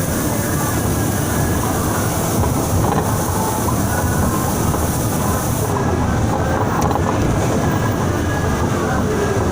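Transjakarta bus running along at speed: a steady rumble of engine and road noise, with a high hiss that drops away about six seconds in.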